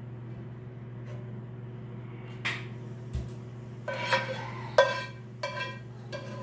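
Metal utensil knocking and clanking against a metal cooking pot as the spaghetti and meat are worked, a few light clicks and then several ringing knocks in the second half, the loudest about five seconds in, over a steady low hum.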